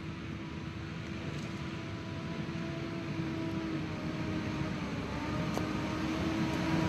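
Steady machine running noise with a constant whine, slowly growing louder and cutting off suddenly at the end.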